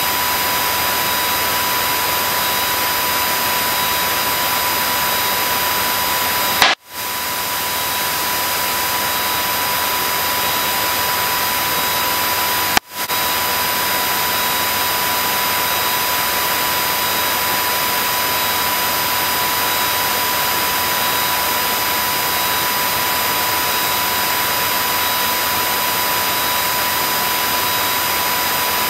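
Cabin noise of a small single-engine propeller plane in flight: a steady rushing hiss with a thin steady whistle in it, cutting out briefly twice, about 7 and 13 seconds in.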